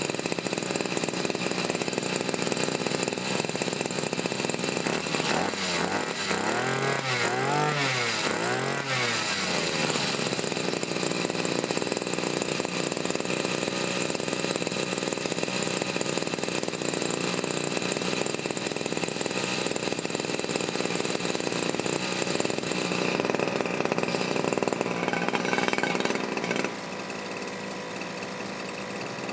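Brush cutter's small petrol engine running, revved up and down three times about a quarter of the way in, then held at a steady speed. Near the end the engine drops back and goes quieter.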